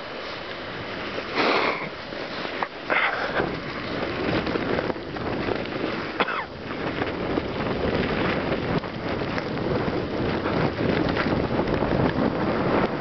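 Wind buffeting the microphone with a constant loud rushing noise during a blizzard ride, with a few sharper louder surges.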